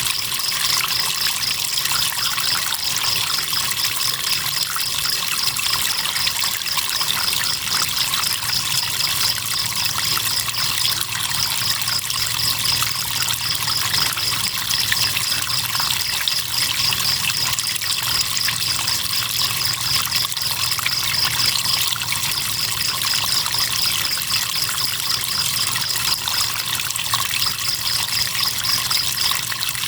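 River water trickling steadily, with crickets chirping in a high, rapid, even pulse that breaks off briefly a few times.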